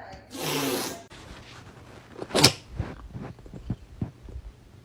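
A short rustle, then one sharp knock about two and a half seconds in, followed by several lighter taps and clicks of household handling.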